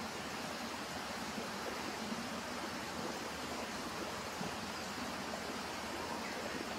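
Steady outdoor ambient noise: an even hiss with no distinct events.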